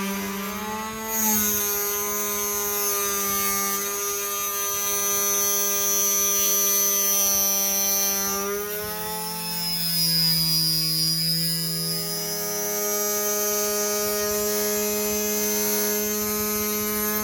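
Small 895 DC motor of a homemade mini table saw running with a steady high whine. About nine seconds in, its pitch drops for a few seconds as the blade is loaded by a cut, then comes back up.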